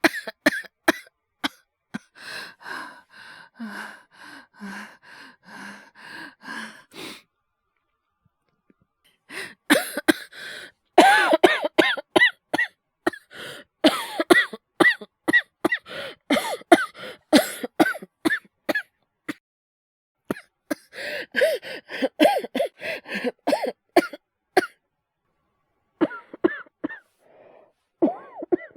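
A man's acted coughing fit. It starts with a row of softer, evenly spaced coughs, then comes in several loud bursts of rapid harsh coughing with short pauses for breath between them.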